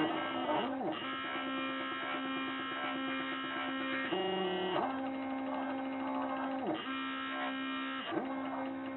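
A DIY GRBL CNC mini router running: a steady high motor whine, with stepper motors that briefly drop and recover in pitch several times as the machine changes direction.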